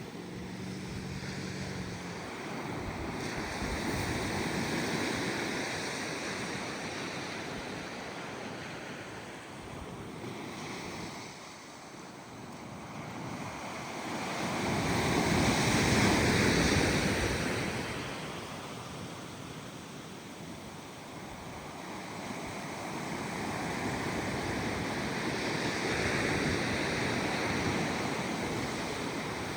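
Small ocean waves breaking and washing up the beach in slow surges, with the biggest wave about halfway through. A faint low hum fades out in the first couple of seconds.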